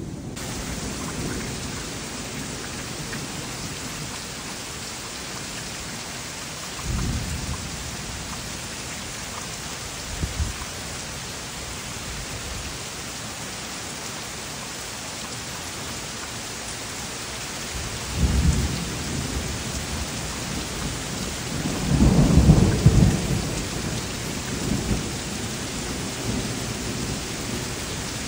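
Heavy, steady rain with thunder rolling through it: short low rumbles about 7 and 10 seconds in, a longer one around 18 seconds, and the loudest roll around 22 to 23 seconds in.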